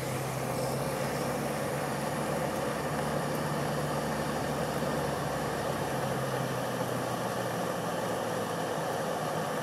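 Land Rover engine running steadily, heard from inside the cab, under a constant hiss of road and cabin noise. Its low hum drops away about three quarters of the way through.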